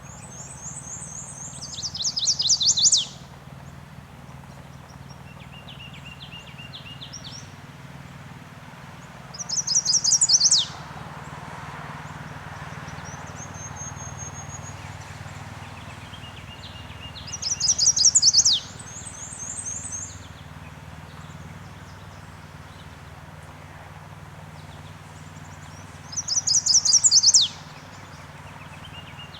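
Chestnut-sided warbler singing its song four times, about every eight seconds: a quick run of high notes that grows louder and ends in a sharp downslurred final note. Fainter songs of other birds come in between, over a low steady hum.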